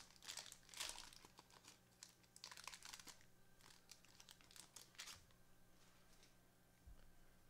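Foil wrapper of a basketball trading-card pack crinkling and tearing as it is peeled open by gloved hands, with faint scattered crackles that die away after about five seconds.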